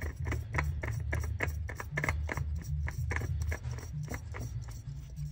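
A new Toyota oil filter being spun on by hand, in a quick run of small clicks and light scrapes, about three or four a second, over a low steady rumble.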